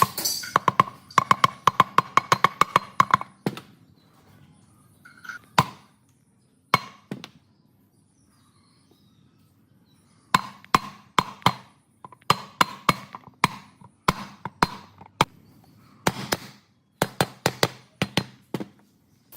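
Bursts of quick, sharp hammer taps, several a second, each with a short ring. There is a quiet gap of a few seconds in the middle.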